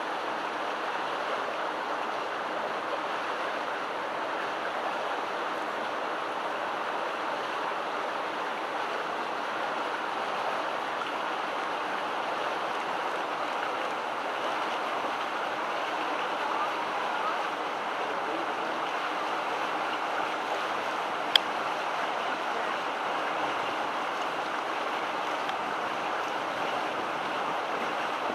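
Steady rush of creek water running over rocks, with a single sharp click about three quarters of the way through.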